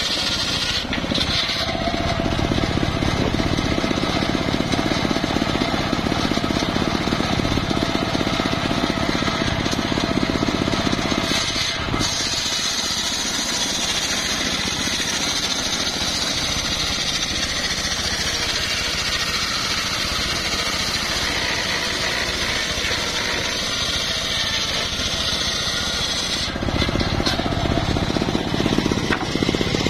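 Homemade engine-driven circular sawmill running steadily, its large blade ripping a log lengthwise into planks. The cutting noise eases about twelve seconds in, with the blade still spinning, and comes back strongly near the end.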